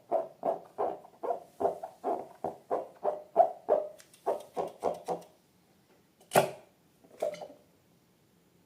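A quick run of short, soft squelching pulses, about three to four a second, from slime being worked by hand. It stops about five seconds in and is followed by two louder single squelches.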